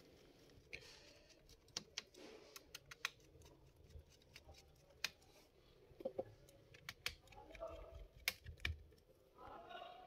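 Faint, irregular clicks and taps of a screwdriver driving the screws of an HP EliteBook Folio 9480M laptop's plastic bottom panel back in.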